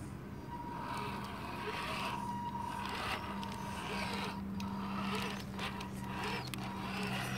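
Electric motor and gearbox of a 1:10 Axial SCX10 RC crawler whining as it drives through mud, the whine swelling and dropping in short bursts of throttle.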